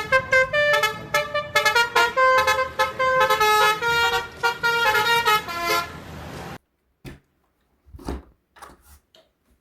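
Toy telolet bus's sound chip playing a multi-tone telolet horn tune, a quick run of changing notes that cuts off about six and a half seconds in. A few faint clicks follow.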